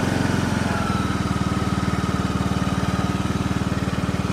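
John Deere riding lawn mower's 19.5-horsepower engine running steadily at mid throttle, warm and just started. A faint whine above the engine note sinks slightly in pitch about a second in.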